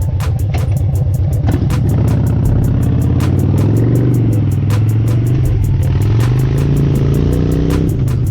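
Harley-Davidson V-twin motorcycle engine running on the road, its note rising and falling twice as the throttle is opened and eased off.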